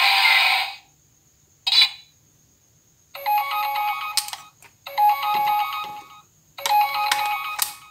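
Auldey DX Rescue Driver toy's electronic sound effects through its small speaker. A toned effect cuts off under a second in, followed by a short beep. Then a ringtone-like electronic beeping jingle plays three times in a row, the toy's vehicle-summon call signal.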